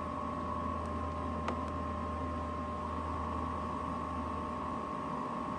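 Blower fan of a Chinese Truma Combi D6E–style combination air and water heater running steadily on high speed, a constant hum with a steady whine. There is one faint tick about a second and a half in.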